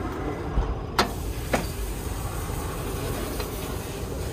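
Sharp metal clicks and a clank from the hinged top lid of a top-loading wood stove being lifted open by its coiled-spring handle, three of them in the first second and a half, the one about a second in the loudest, over a steady low rumble.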